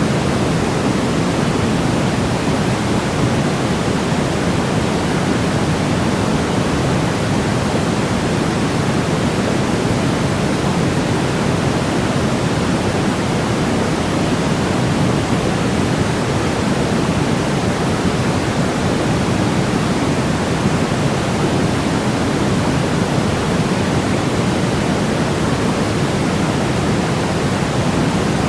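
Continuous white noise, weighted toward the low end like pink noise: a steady, even rushing hiss with no change in level or character.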